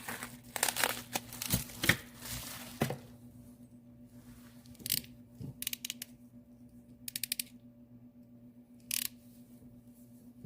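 Plastic packaging being torn open and crinkled for about three seconds, then a few sharp clicks and two quick runs of rapid clicking from handling the crimping pliers.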